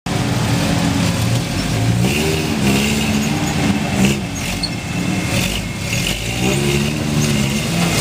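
Lifted Toyota pickup's engine revving up and down under load as the truck crawls up a rocky ledge. The pitch rises and falls several times.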